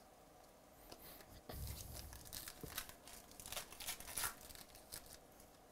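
A trading-card pack's foil wrapper being torn open and crinkled by hand: a run of crackling and tearing that starts about a second and a half in and peaks a little before the end.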